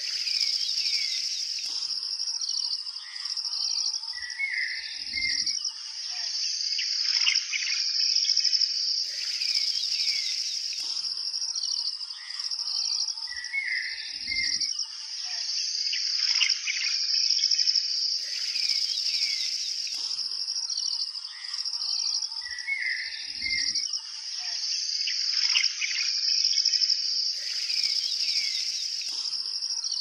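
Nature-sounds track: a steady high insect chorus with birds chirping over it. The same stretch repeats about every nine seconds, so it is a loop.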